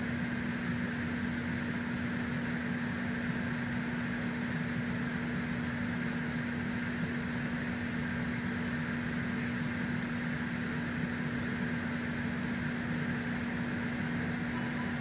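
Steady machine hum: one constant low tone over an even hiss, with no changes or separate events.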